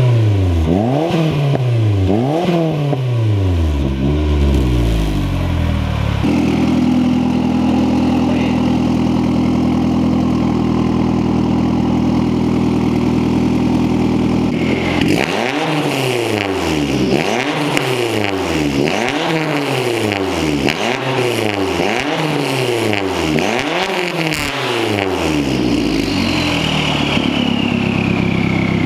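Turbocharged Mazdaspeed Protege5 2.0 L four-cylinder revved through a custom straight-pipe exhaust with no back pressure. A few blips come first, then a steady idle for about eight seconds, then a quick string of about nine revs. Near the end a high turbo whistle falls in pitch as the revs come down.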